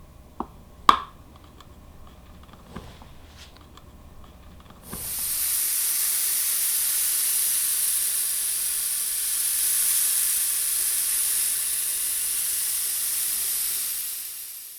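Steel balls rolling around the inside of a brass bowl, a steady high rushing hiss like rain or waves. At first it breaks off, leaving a few sharp metallic clicks (a loud one about a second in). After about five seconds the rushing resumes and fades out near the end.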